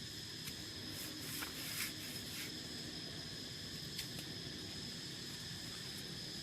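Steady high insect chirring, typical of crickets, with a few short clicks and knocks in the first couple of seconds and one more about four seconds in.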